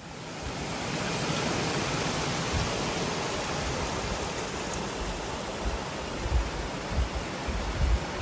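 A small mountain creek cascading over rocks, a steady rushing of water.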